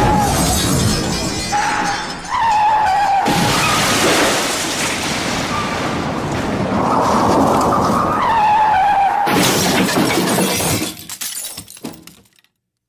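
Stock sound effects of crashing and shattering, a dense noisy clatter in three stretches with a wavering whistle-like tone running through parts of it, dying away and cutting off about twelve seconds in.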